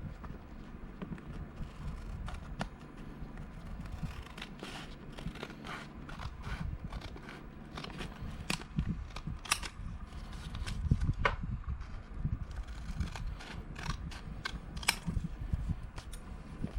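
Paper being handled and cut: irregular snips, clicks and rustles, with a few sharper clicks a little past halfway.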